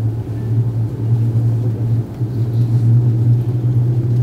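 Steady low hum of an Airbus A330-300's passenger cabin on the ground before takeoff, a constant drone of aircraft engine and air-conditioning noise.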